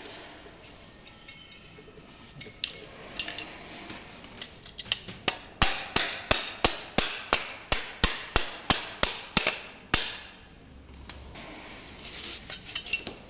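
Hammer blows on a long threaded rod screwed into an electric scooter's folding mechanism, knocking the part out: a run of sharp metal-on-metal strikes, about three a second, from about five seconds in to about ten seconds in. Lighter clinks of handling come before them.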